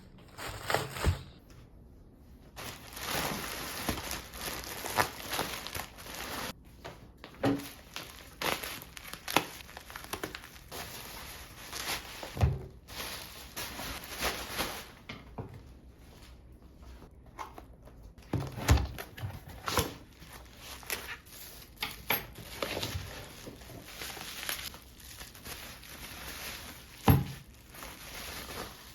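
Packaging crinkling and rustling as things are handled, broken by knocks and thunks of objects being set down.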